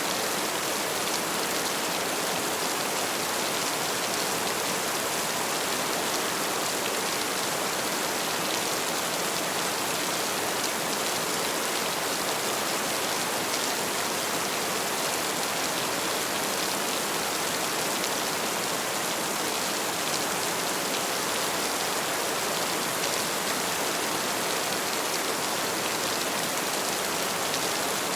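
Heavy rain falling in a steady, even hiss, with fine pattering of individual drops.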